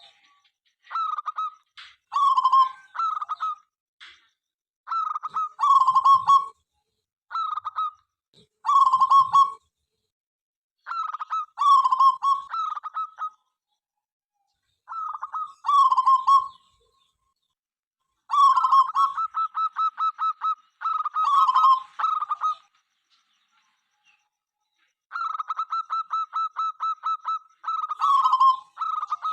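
Zebra dove (perkutut) cooing: short phrases of clipped notes repeated every second or two. Twice, about two-thirds of the way in and again later, the song runs into a quick even trill of about six notes a second lasting a couple of seconds.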